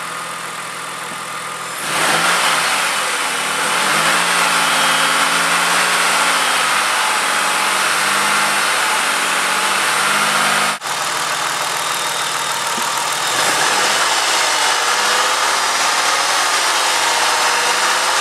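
1999 Ford Taurus engine running at idle, then revved up about two seconds in and held at a steady raised speed, around 2000 RPM, as the load for a coolant voltage test. There is a sharp break about eleven seconds in, after which the engine runs on and rises again a few seconds later.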